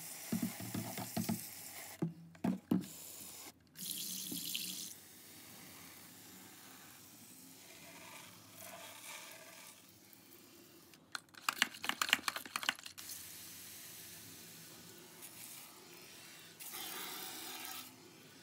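Water spraying into a reptile tank in two hissing bursts of about a second each, with a couple of seconds of clicking and rattling midway: the tank being misted to raise its humidity.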